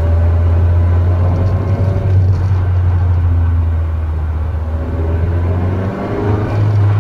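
Mazda MX-5 (NC Roadster) driving with its six-speed manual gearbox: a steady low drive-train drone with faint whining tones that slowly slide in pitch. About six seconds in the sound briefly dips, then the drone comes back slightly higher. The owner takes the abnormal gearbox noise for a possible sign of impending transmission failure.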